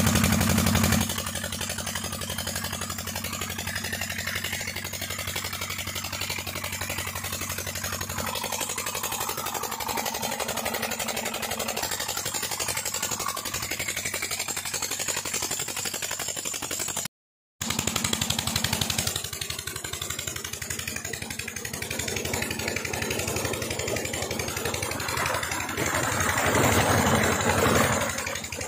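A Petter single-cylinder diesel engine driving a tube-well pump runs steadily with a rapid, even firing beat. It cuts out briefly about two-thirds of the way through. Near the end, the rush of pumped water pouring into a concrete channel rises over it.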